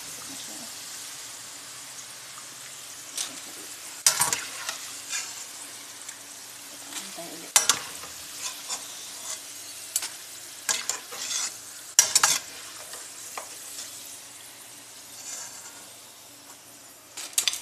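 Potato slices deep-frying in a pan of oil, sizzling steadily, while a metal slotted spoon stirs and lifts them, giving several sharp clinks and scrapes.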